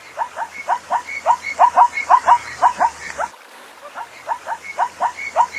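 Zebra calling: a rapid series of short, high barking yelps, about four or five a second, broken by a pause of about a second past the middle before the yelping starts again.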